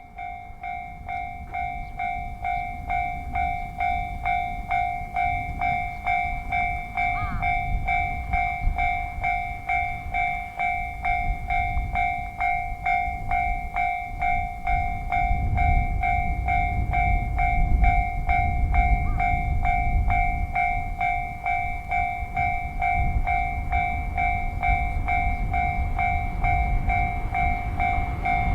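Japanese level crossing's electronic warning bell ringing in an even repeating ding, about two to three a second. Under it a train's low rumble grows louder from about halfway through as the train approaches.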